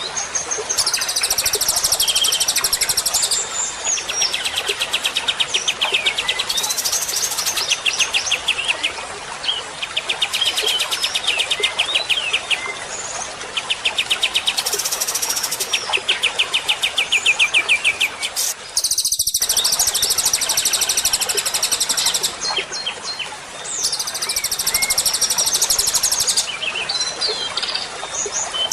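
Recorded songbird song of the masteran kind used to tutor white-rumped shamas: very high rapid trills in blocks of a second or two, alternating with lower fast rattling series of notes, over a steady hiss. There is a brief cut in the sound a little past the middle.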